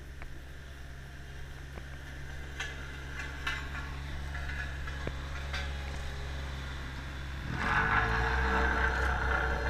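Truck engine running steadily behind an asphalt-laying body, with light scrapes and clicks as asphalt rakes work the fresh patch. About three-quarters of the way through, a louder rushing mechanical noise joins in and holds.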